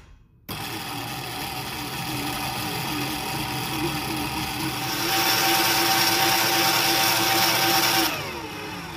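Electric stand mixer running, its dough hook kneading wet ciabatta dough after the last flour and salt have gone in. The motor starts about half a second in, gets louder about five seconds in, then is switched off and winds down with a falling whine near the end.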